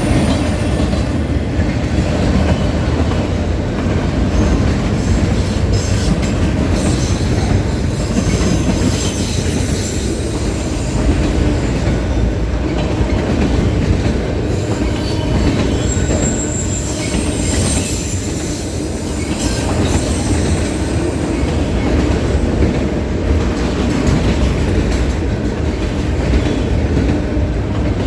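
A train rolling past on the rails: a steady rumble of railcars with brief high-pitched wheel squeals.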